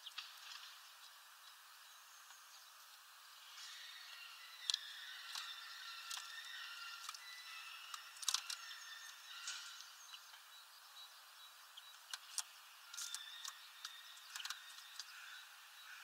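Small songbirds twittering and chirping faintly, busiest in the middle and again near the end, with a few sharp clicks among the calls.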